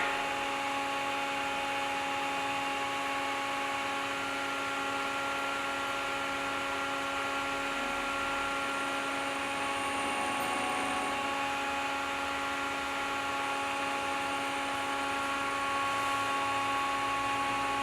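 Wide-cut bandsaw mill running steadily, a constant machine hum with several steady tones and no change in speed.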